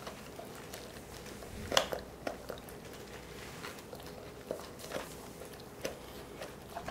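A Cane Corso gnawing on a giant knotted chew bone: scattered crunches and bites with short pauses, the loudest a little under two seconds in.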